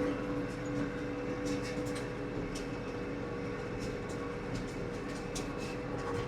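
Farm tractor running steadily while pulling a hay rake, a constant engine drone with a steady hum and a few faint ticks.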